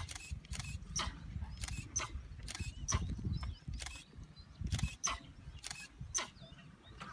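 Camera shutters clicking in irregular runs, about two clicks a second, over a steady low rumble.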